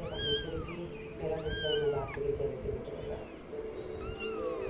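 Kitten mewing: three loud, high mews, each rising then falling in pitch, with a fainter mew between the second and third.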